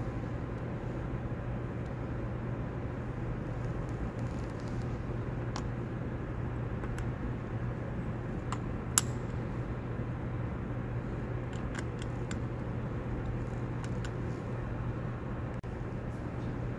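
Steady low hum and rumble of a large cathedral interior, with scattered light clicks and one sharper clink about nine seconds in as small tea-light candles are set into a rack of glass votive cups.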